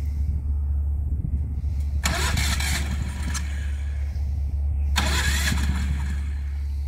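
Predator 459cc single-cylinder four-stroke engine on a Mud Skipper mud motor being pull-started: two pulls about three seconds apart, each a burst of about a second and a half that dies away without the engine keeping running.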